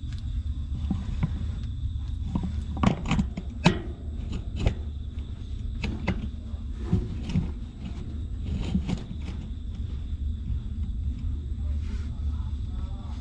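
Newborn puppies suckling at their mother, with scattered short wet smacking and sucking sounds, busiest a few seconds in. A steady low rumble and a faint high steady tone run underneath.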